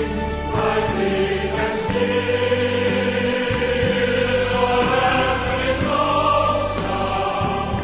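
A choir singing slow music in held chords that change about every second.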